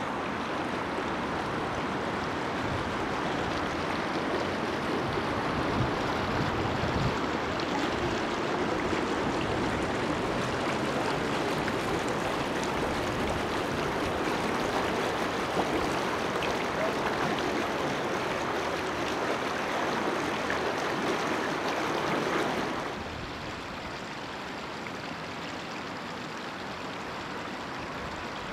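Floodwater running steadily, an even wash of water noise. It drops to a quieter level about three-quarters of the way through.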